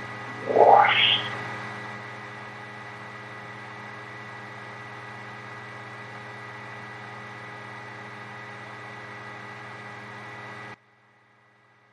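A short rising sweep about half a second in, then a steady electrical hum with a faint high whine on the broadcast line, which cuts off abruptly near the end. This is dead air during technical difficulties.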